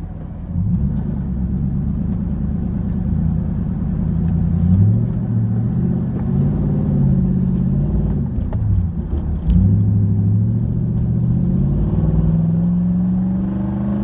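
Car engine accelerating under load, heard from inside the cabin. Its pitch climbs, drops at a gear change about eight and a half seconds in, then climbs again. The engine is running on a fuel pump that the owner judges to be going bad, losing pressure under load.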